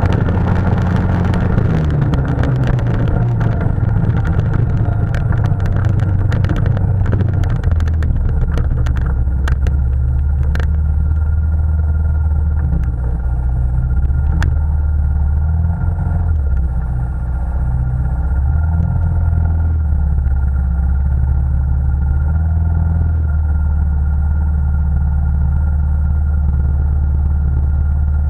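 Quad (ATV) engine heard from on board. It runs along a snowy trail with scattered clattering over the first ten seconds or so, drops in pitch as it slows, then idles steadily while stopped.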